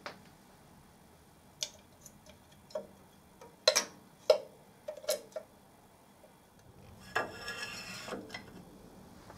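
Small metal parts being handled on a milling machine: a string of light clicks and taps as an aluminium switch bracket is offered up against the casting, then a scraping rub of about a second, about seven seconds in.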